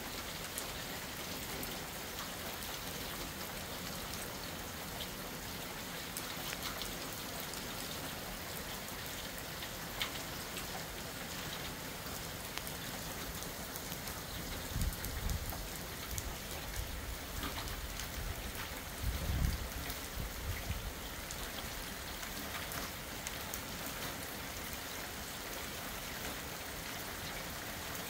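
Steady rain falling on a wet concrete driveway and shrubs, with single drops ticking close by. Two brief low rumbles come around the middle, the second one the louder.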